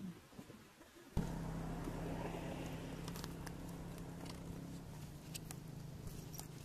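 A steady low engine drone with a hum starts abruptly about a second in, with a few faint clicks over it. Before that there is only faint outdoor ambience.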